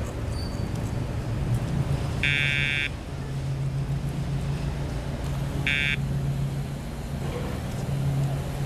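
Two short electronic beeps, the first about half a second long and the second shorter about three seconds later. A steady low engine drone runs underneath.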